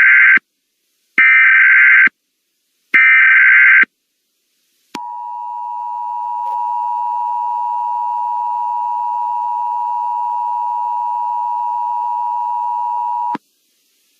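Emergency Alert System SAME header: the end of one burst of screeching data tone, then two more, each just under a second long. After a short gap comes the EAS two-tone attention signal, a steady harsh tone that grows a little louder over its first second or so, holds for about eight seconds, then cuts off. Together they announce that an emergency alert is about to be read.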